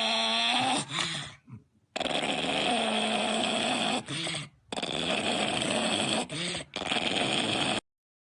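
A dog making long, drawn-out vocal sounds, several stretches of a second or two each with short breaks between. The sound cuts off abruptly near the end.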